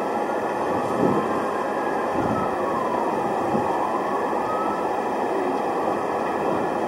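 Steady din of city street noise with a distant emergency siren wailing, its pitch sliding slowly down and back up.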